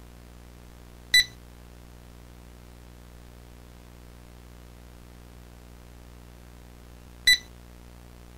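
Two short, sharp electronic beeps about six seconds apart, over a steady low hum and hiss.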